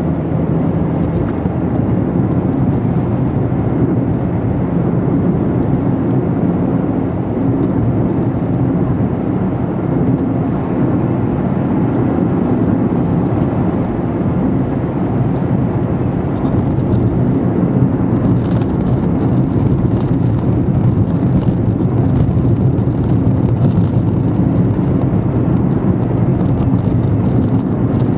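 Car engine and tyre noise heard inside the cabin, driving at a steady pace, with a little more high hiss in the later part.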